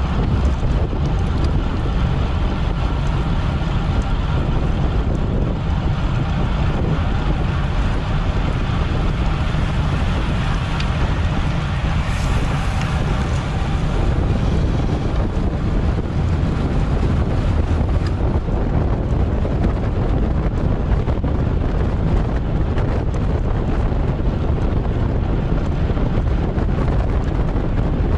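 Steady wind noise rushing over the microphone of a camera on a racing bicycle, loud and unbroken, heaviest in the low end.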